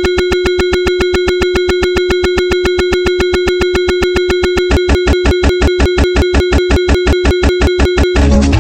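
A steady electronic tone, like a dial tone, chopped by fast regular clicks about eight a second. Low thumps join the clicks about five seconds in, and it all cuts off abruptly near the end, giving way to music.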